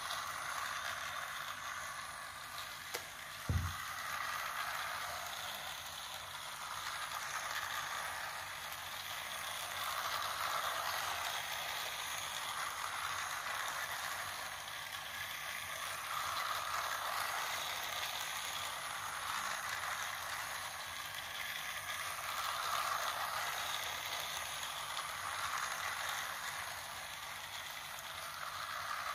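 Battery-powered plastic toy train running on plastic track: a steady motor whir and wheel rattle that swells and fades every few seconds as the train laps the loop. A single sharp knock about three and a half seconds in.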